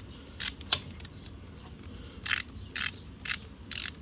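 Hand ratchet wrench clicking as it backs out a screw on an outboard motor: a few quick clicks in the first second, then four short clicking strokes about half a second apart.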